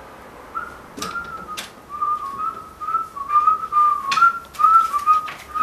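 A person whistling a slow, wavering tune, with a few sharp clicks or knocks along the way.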